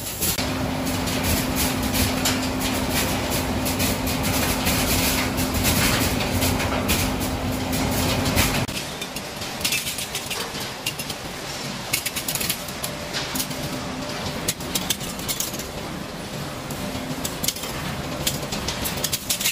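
Scrap-metal sorting machinery running: a steady hum and low drone under a dense, rapid clicking of metal pieces. About nine seconds in, the deep drone stops abruptly, leaving quieter machine noise with the clicking going on.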